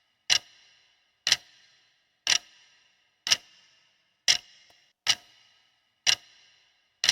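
Quiz countdown timer ticking like a clock: one sharp tick about every second, each with a short ringing tail, counting down the answer time.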